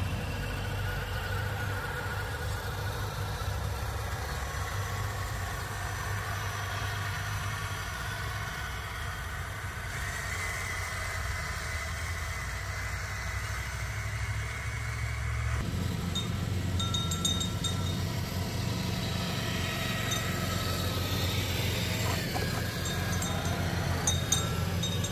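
A vehicle running with a steady low rumble, its sound changing abruptly twice, about ten and fifteen seconds in.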